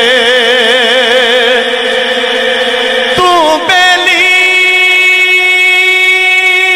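A man's voice singing a Punjabi Sufi kalam, holding one long note with a wavering vibrato. About three seconds in it breaks off, slides, and settles on a second, steadier held note.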